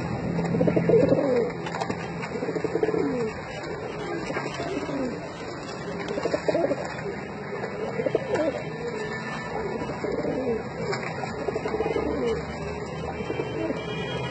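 Domestic pigeon cooing over and over, a low, falling coo every second or two.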